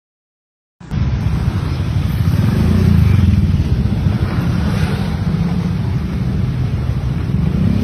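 A steady, loud, low rumbling noise starts abruptly about a second in, after a moment of silence.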